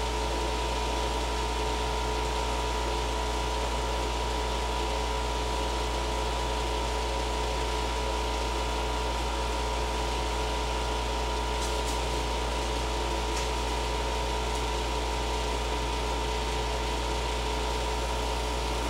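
Window air conditioner running with a steady, unchanging hum: a low drone with two faint steady tones over it.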